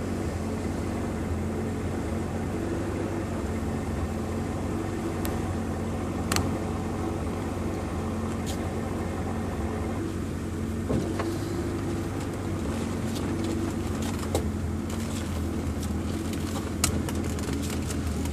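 Off-road 4x4's engine running steadily at low revs, heard from inside the cab as the vehicle crawls along the trail, with a few brief sharp knocks.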